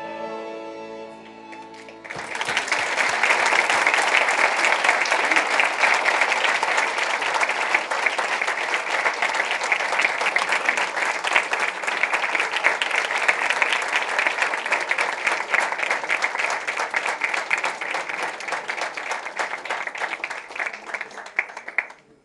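A live folk band of violins and accordion holds its final chord. About two seconds in, an audience breaks into long, steady applause, which stops abruptly near the end.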